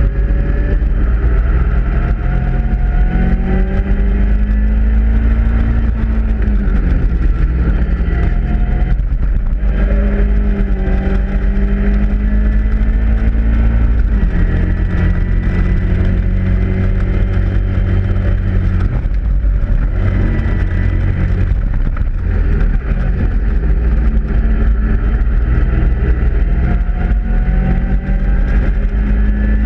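Caterham Roadsport race car's Ford Sigma 1.6 four-cylinder engine heard from the cockpit at racing speed. The engine note climbs through the revs and drops several times as the driver shifts gear and lifts for corners. Heavy wind rumble on the open-cockpit microphone runs underneath.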